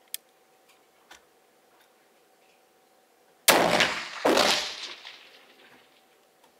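A .45-70 Sharps single-shot rifle fired once: a sharp click near the start, then a loud shot about halfway through, followed less than a second later by a second loud report that rings out and fades over about a second.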